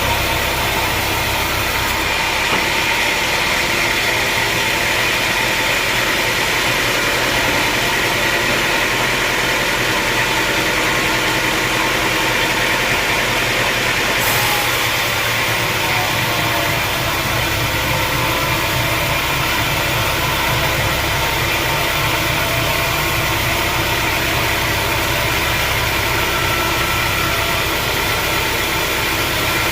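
Sawmill machinery running steadily with an engine-like drone. Its low hum drops away about two seconds in and returns around the middle.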